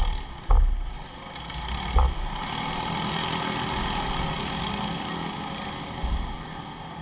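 Race-kart engines running at idle nearby, a steady mechanical hum, broken by a few short low thumps about half a second in, at two seconds and near the end.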